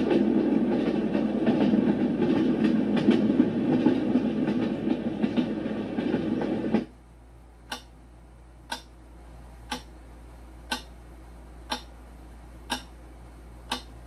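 Renpho White Noise Sleep Machine playing its sound tracks through its speaker: a loud, low rumbling noise until about seven seconds in, when it switches to a quieter track of sharp ticks about once a second.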